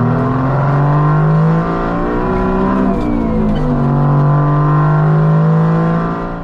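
Detroit Diesel two-stroke diesel engine in an old truck, heard from inside the cab, pulling under acceleration. Its note climbs, drops at a gear shift a little under two seconds in, then rises again and holds.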